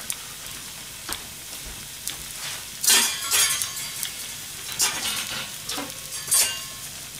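Pork belly and shredded cabbage frying in a pan, the first layers of a Hiroshima-style okonomiyaki: a steady sizzle with sharp crackles of spitting pork fat. The loudest burst of crackling comes about three seconds in.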